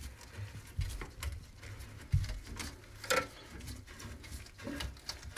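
Irregular clunks, low thumps and sharp clicks of hands working the water supply line connection beneath a toilet tank, with two louder knocks around the middle.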